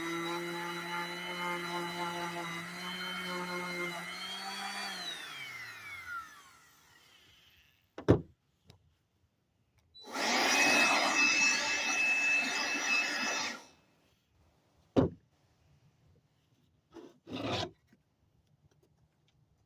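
Small electric power tool running steadily, then switched off about five seconds in, its whine falling in pitch as it spins down. Later a power tool works on wood again for about three and a half seconds, between single sharp knocks, and a short burst of tool noise near the end.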